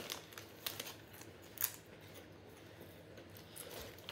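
Faint scattered crackles and clicks from snacks being handled and eaten, with one sharper click about a second and a half in, quieter after about two seconds.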